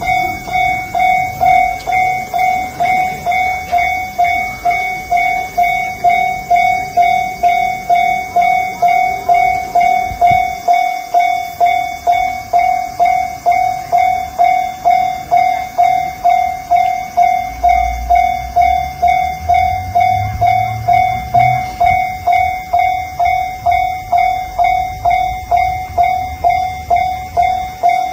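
Japanese railway level-crossing electronic warning bell ringing steadily at about two strokes a second. A low rumble joins it about two-thirds of the way through.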